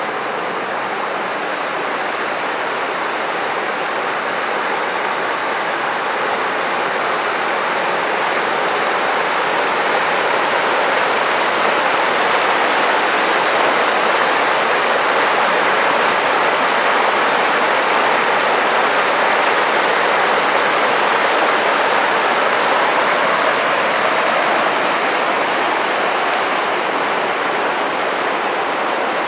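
The Tara River rushing over stones through shallow rapids: a steady sound of running water, growing a little louder over the first several seconds and easing slightly near the end.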